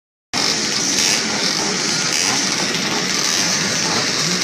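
A grid of classic motocross bikes running their engines together on the start line, a dense, steady buzz of many engines held at revs before the start.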